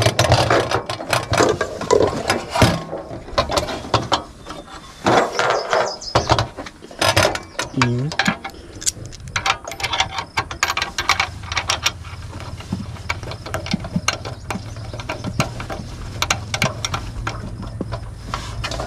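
Metal clicks and clatter from a Jetboil folding two-burner camp stove being handled: its hinged burner halves and pot supports knocking, then a brass fuel-hose fitting worked into the stove's fuel inlet. The clicks are thick in the first half and sparser later, over a low steady hum.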